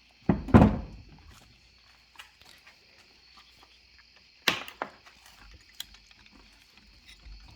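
Hand tools and parts knocking during fuel pump work: a heavy thunk about half a second in, a sharp knock about four and a half seconds in, and lighter clicks and taps between.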